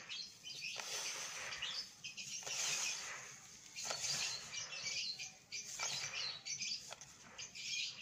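Small bird seed, coated with olive oil, rustling and hissing as hands stir and scoop it through a bowl, in repeated strokes about once a second.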